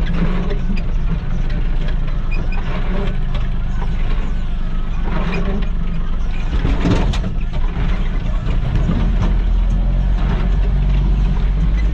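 Farm utility vehicle's engine running steadily at a driving pace, a constant low drone, with a few knocks and clatters about five to seven seconds in.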